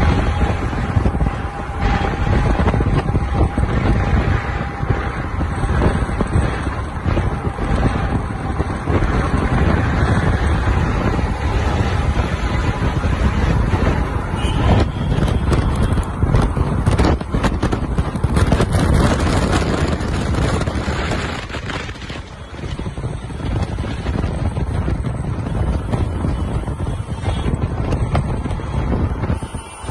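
Loud, steady outdoor din of vehicles and voices, with wind buffeting the microphone.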